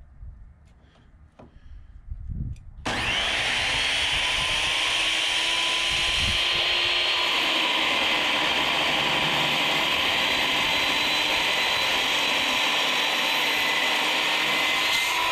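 Circular saw starting up about three seconds in, then running steadily as it cuts through a steel truck frame rail. Its pitch rises a little near the end.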